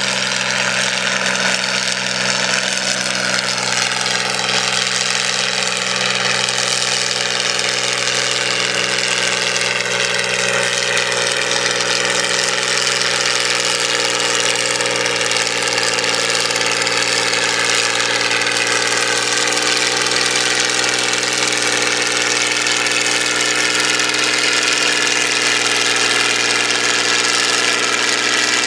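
John Deere 4010 gasoline tractor's six-cylinder engine running under heavy load as it drags a weight-transfer pulling sled at a slow crawl, its pitch holding nearly steady throughout.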